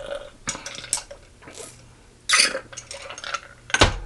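Close-miked eating and table-handling sounds: scattered clicks and knocks, a loud rushing noise a little past two seconds in, and a sharp knock near the end.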